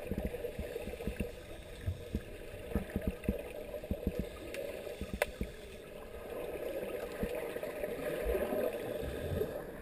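Divers' scuba exhaust bubbles, heard underwater through a camera's waterproof housing: a muffled, steady underwater noise with many short pops and clicks scattered through it.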